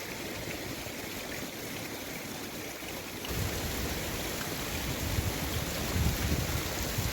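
Rushing water of a canyon river with small waterfalls, a steady hiss; a deeper rumble comes in about three seconds in.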